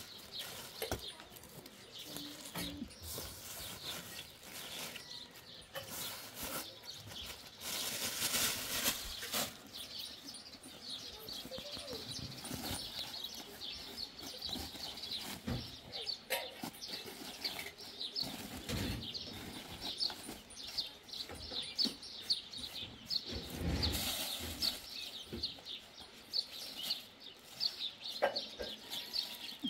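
Small birds chirping in quick, repeated short notes, with scattered rustling as goat hair, a cloth sheet and a plastic bag are handled.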